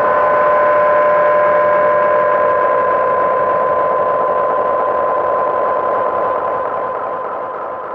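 Background music: a sustained droning tone with a steady hum, fading out near the end.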